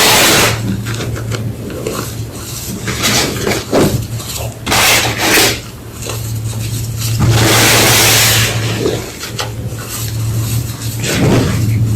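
Blocks of homemade gym chalk being crushed and crumbled by hand: repeated loud, dry crunches and scraping rubs, several heavier crunches a few seconds apart, over a steady low hum.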